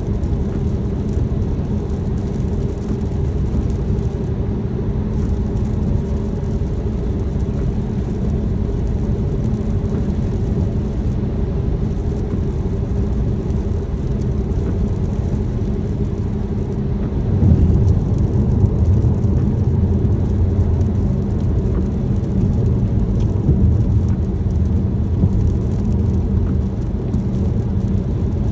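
Car driving in the rain: a steady drone of road and engine noise with a fine patter of rain. The low rumble grows louder about seventeen seconds in.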